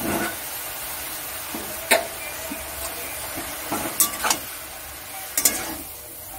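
Chopped water spinach hissing steadily in a hot kadai as a spatula tosses it. The spatula scrapes and clacks against the pan a few times: about two seconds in, twice around four seconds, and again just past five seconds.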